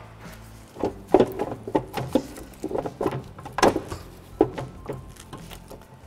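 Rubber air-intake duct being twisted and worked loose from the throttle body by hand: a run of irregular knocks and clicks that starts about a second in.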